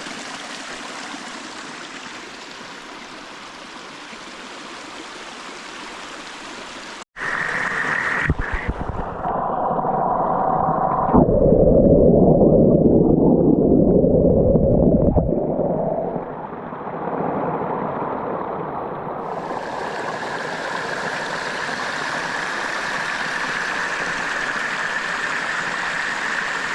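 Running water rushing steadily. It cuts out briefly about seven seconds in, then comes back louder and duller, swells and eases off.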